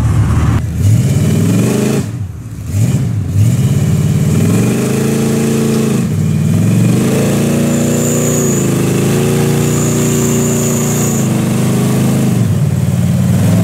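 Large vehicle engines revving hard, climbing and falling in pitch again and again under load, with a brief drop about two seconds in and a sudden change about six seconds in. A thin high whistle comes and goes in the later revving.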